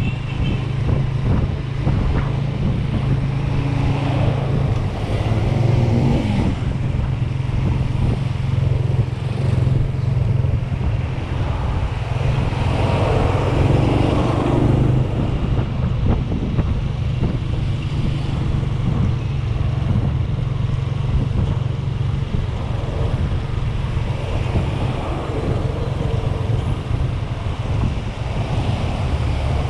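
AKT NKD motorcycle's small single-cylinder engine running steadily while riding at low city speed, with street traffic around it. Near the middle a bus passing alongside swells louder for a few seconds.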